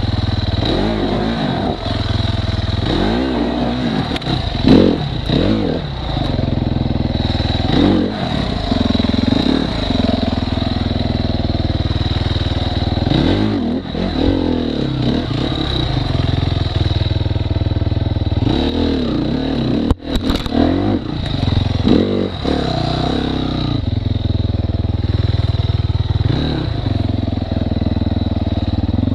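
Enduro dirt bike engine revved up and down again and again in short bursts while it crawls over roots and logs on a rough forest trail, with the bike clattering over the bumps.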